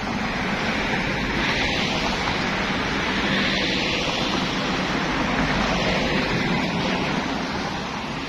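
Steady rushing noise of wind on the phone's microphone, swelling and easing a few times.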